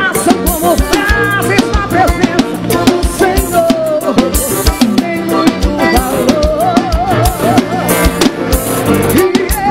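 Live gospel band music: a drum kit keeping a steady, busy beat under bass, accordion and keyboards, with a wavering melody line on top.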